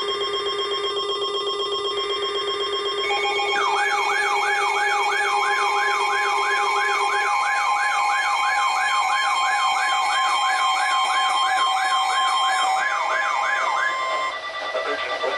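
Several electronic emergency alert tones sounding at once: steady held tones, joined about four seconds in by a siren-like yelp that sweeps downward over and over, about two and a half times a second, until near the end. This is the alarm that announces an incoming weather warning on alert receivers.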